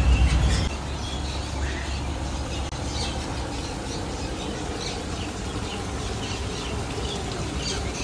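Many birds calling, short high chirps and calls scattered throughout over a steady background hiss. A low rumble stops within the first second.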